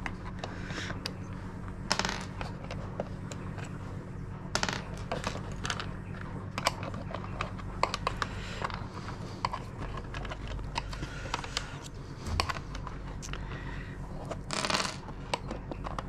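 Irregular small clicks and taps of a screwdriver and loose metal screws against a washing machine's plastic door frame as screws are picked out and the trim is pried at, over a steady low hum.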